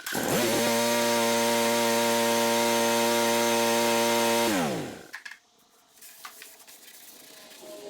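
John Deere D125 lawn tractor's Briggs & Stratton engine starting, rising quickly in pitch, running steadily for about four seconds, then shut off and winding down about five seconds in. It is a brief run after an oil change to fill the new oil filter.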